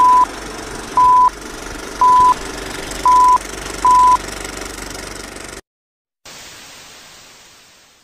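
Film-leader countdown sound effect: five short, high beeps, one a second, over steady crackly noise. After the last beep the noise cuts off, a moment of silence follows, then a hiss fades away.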